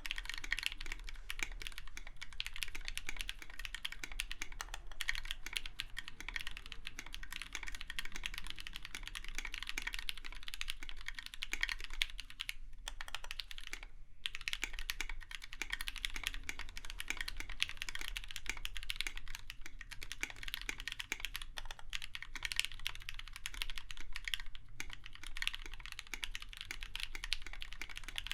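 Continuous typing on a KBDFANS 5 Degree mechanical keyboard with aluminium plate and lubed Gateron Yellow linear switches (milky tops, Krytox 205g0), keys clacking in a dense run with a short pause about halfway through.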